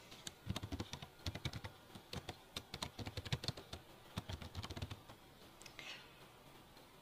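Typing on a computer keyboard: a quick, irregular run of key clicks for about five seconds, then a pause.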